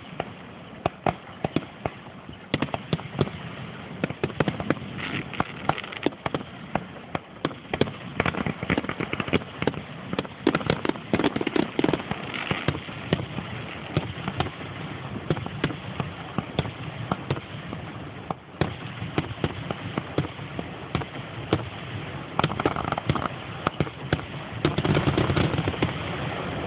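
Fireworks display: aerial shells bursting in quick succession, a dense run of sharp bangs and crackles, with a louder stretch of continuous noise near the end.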